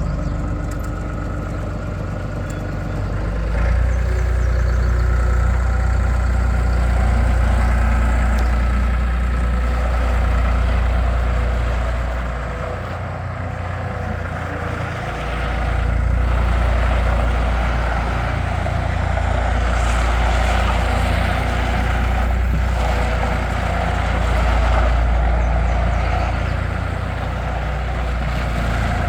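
2002 New Holland LS180 skid steer loader's diesel engine running continuously, its sound swelling and easing several times.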